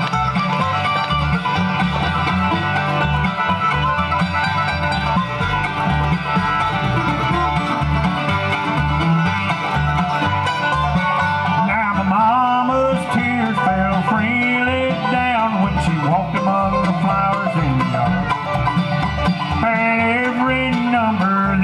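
Live bluegrass band playing: banjo, fiddle, acoustic guitars, mandolin and upright bass over a steady beat, with a sliding lead line coming to the fore about halfway through.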